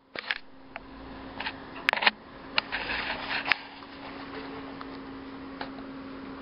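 Camera handling noise: a flurry of sharp clicks and knocks over the first three and a half seconds or so, over a steady low hum and faint hiss.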